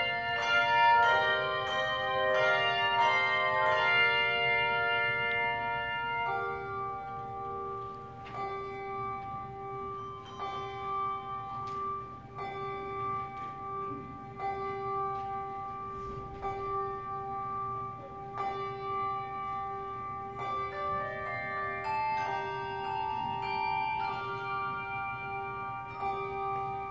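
Handbell choir ringing a tune on tuned handbells. A busy run of many ringing notes comes first; from about six seconds in it thins to a few long-ringing notes struck now and then over one held low bell, and more bells join near the end.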